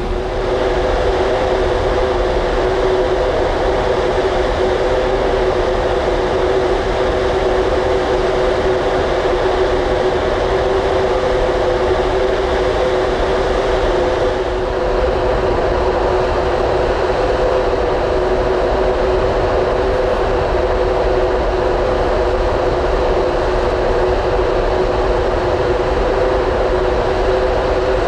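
Steady machinery drone from the ferry Mega Smeralda, two steady hum tones, over a constant rushing of wind and water heard from the open deck while the ship is under way.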